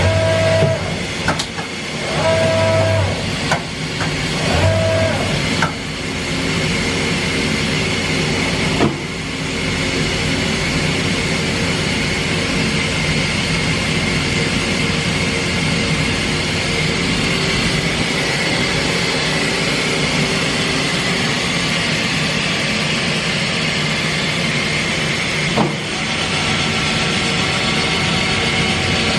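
Mazak Variaxis 630-5X five-axis machining center running under power. In the first five seconds there are a few short whirs of motor tone. After that comes a steady mechanical hum with a thin high whine, broken by a clunk about nine seconds in and another near the end.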